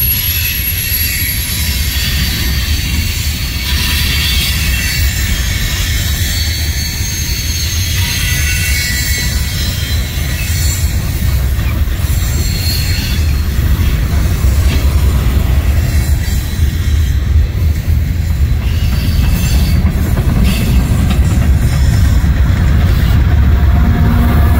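Freight train of hopper and gondola cars rolling past on a curve: a steady low rumble of steel wheels on rail with thin, wavering high squeals from the wheels. It grows louder through the second half, and a diesel locomotive's steady engine tone comes in right at the end.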